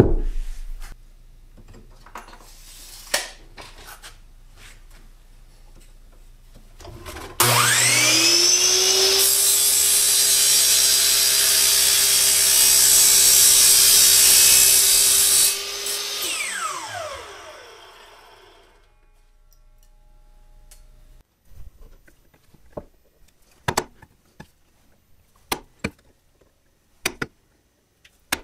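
Sliding compound miter saw starting up about seven seconds in, its motor whine rising and then holding steady while the blade cuts loudly through aluminum angle for about eight seconds; the blade then winds down, its pitch falling. Later come scattered sharp taps of a plastic mallet on a punch marking hole positions in plywood.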